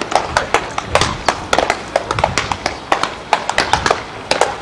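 Many sharp pops and clicks in quick, irregular succession, several a second, over a low murmur.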